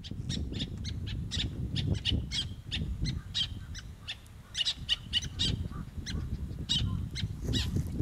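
Black-naped terns calling from a breeding colony: many short, high calls in quick, irregular succession, over a steady low rumble.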